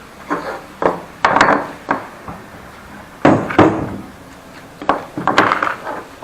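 Irregular clusters of wooden knocks and clunks as pieces of timber are handled and knocked together.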